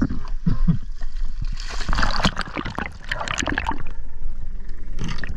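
Water splashing and gurgling in irregular bursts, busiest between about two and four seconds in.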